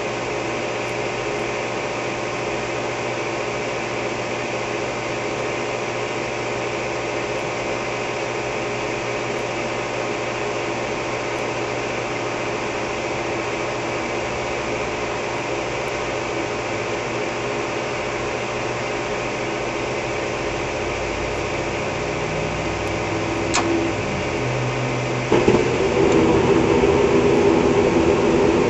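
Central gas furnace running with a steady hum from its exhaust inducer motor. About 23 seconds in there is a sharp click, and a couple of seconds later the sound jumps louder into a rough roar, which fits the gas burners lighting off the newly replaced ignitor.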